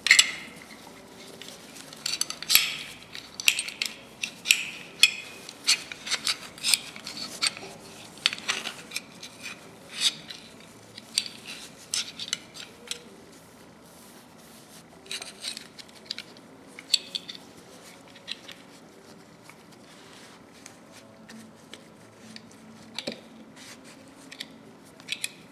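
Irregular light metal clinks and taps as steel locking-plier parts are handled and set down, with quieter rubbing between them. The clinks are more frequent in the first half.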